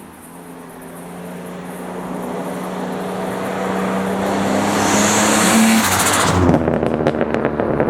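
Turbocharged Mitsubishi Magna engine under load, growing steadily louder as a turbo hiss builds. Near the end the throttle closes and the turbo flutters with a rapid chatter.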